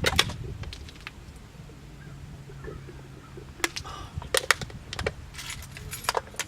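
A few scattered sharp clicks and knocks, one right at the start and several more in the second half, over a faint steady low hum.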